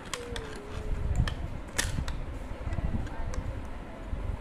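Pencils clicking and tapping against a hard plastic pencil box as they are pushed into its pencil slot, a handful of separate clicks over low handling rumble.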